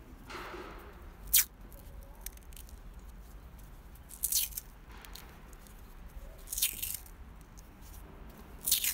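Black cloth harness tape being pulled off its roll and wound around a bundle of wires: four short peeling sounds, roughly every two to two and a half seconds.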